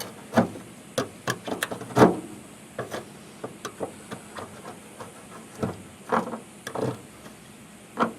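Hand scraper scraping and peeling the old factory sound-deadening material off the car's trunk floor, in a series of irregular short strokes and rasps, a few of them longer and louder.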